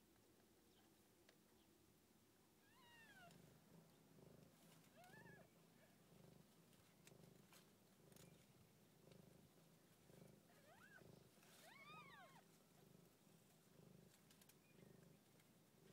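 Faint, slow rhythmic purring of a mother cat lying with her newborn kittens, starting about three seconds in. A few short, thin, high mews rise and fall in pitch, two of them close together near the end, from the newborn kittens.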